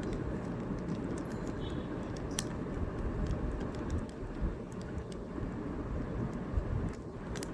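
Rubik's cube being turned by hand: scattered sharp plastic clicks as the layers are twisted, the clearest about two and a half seconds in and near the end, over a steady low background rumble.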